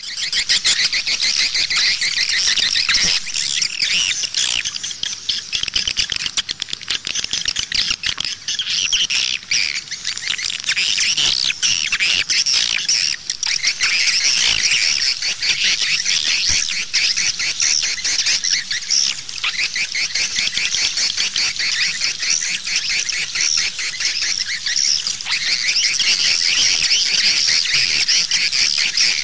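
Swiftlet lure call: a dense, unbroken chorus of rapid high-pitched chirping and twittering from swiftlets. This is the 'outside' calling track used to draw swiftlets in to a bird house.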